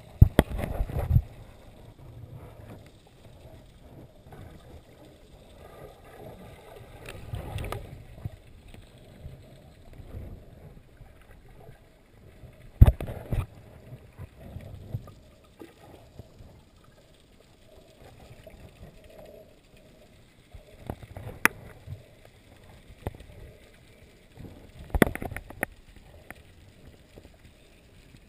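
Water sloshing and gurgling, muffled as heard through an underwater camera housing. A few sharp knocks stand out: a cluster near the start, a loud one about halfway, and two more late on.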